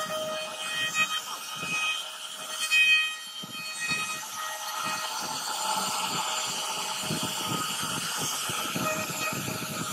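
CNC router spindle carving a relief pattern into a wooden panel: a steady high whine mixed with the hiss of the bit cutting through the wood.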